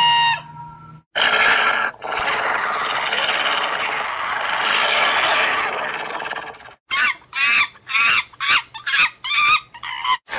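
Wild African animal sounds: a steady, noisy stretch lasting about five seconds, then a rapid run of short, quickly repeated calls.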